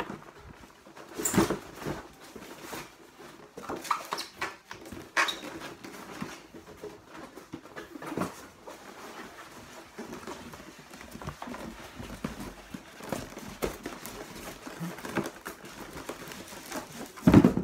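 A cardboard box and its packaging being handled: irregular rustles, scrapes and knocks, with the loudest knock near the end.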